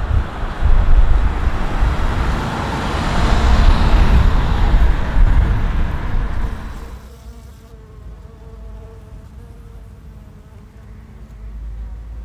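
Road traffic: cars passing close by with engine and tyre noise. About seven seconds in this gives way to a faint, wavering buzz of honeybees around their hives.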